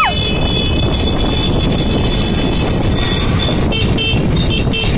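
Scooter engines and wind noise heard from a motorbike riding in a convoy, a steady loud rush. Short horn beeps come near the end.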